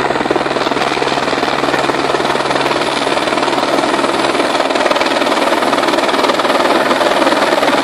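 Firefighting helicopter hovering close overhead with a water bucket slung beneath, its rotor blades chopping fast and steadily, growing a little louder as it comes lower.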